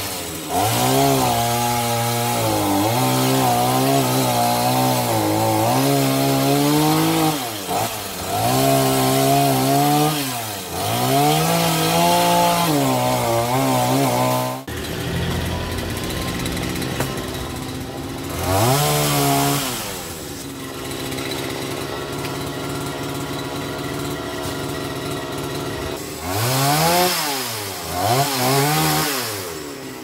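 Chainsaw cutting branches, its engine revving up and dipping again and again under load. About halfway it drops back to a lower, steady running. It revs briefly twice more near the end.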